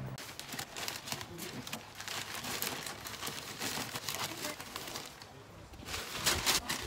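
Sheets of newspaper crinkling and rustling as they are crumpled and stuffed into a plastic bucket by hand. The rustling eases briefly about five seconds in, then comes back louder near the end as more sheets are handled.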